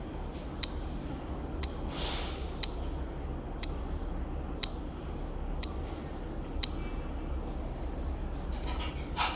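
Sharp electronic clicks once a second from the small loudspeaker of a homemade quartz-movement detector: its pickup coil and transistor preamp catch the once-a-second drive pulse of a Citizen quartz watch's stepping motor held against the coil. The clicks sit over a steady amplifier hum and hiss, with brief handling rustles about two seconds in and near the end.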